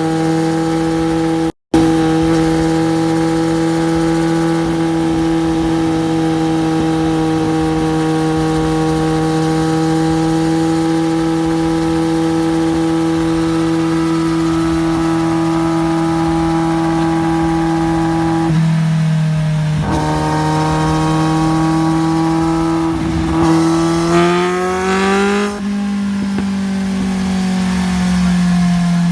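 Kawasaki Z750's inline-four engine with an Arrow aftermarket exhaust running on a roller dyno, held at a steady speed for a long stretch. It then drops back, revs up and slowly winds down near the end.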